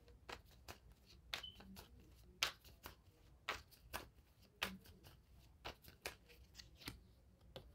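Deck of tarot cards being shuffled by hand: a faint run of short card snaps and taps, about three a second.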